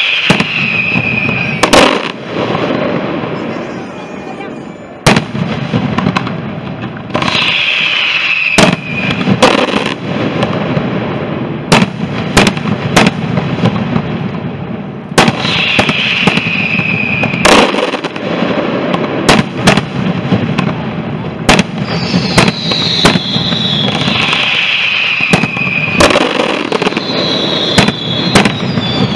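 Fireworks going off: sharp bangs from bursting shells and firecrackers at uneven intervals, over steady crackling. Several falling whistles, each lasting a second or two, come every few seconds.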